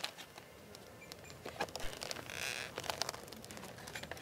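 Handling of a packaged green vinyl jump rope on its cardboard backing card: scattered light clicks and taps of the plastic rope and card, with a short scratchy rustle a little past halfway.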